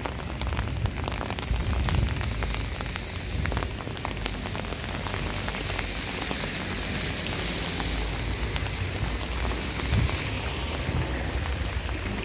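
Steady rain falling on wet pavement, with scattered drips ticking. A brighter hiss of water rises about halfway through and drops away near the end.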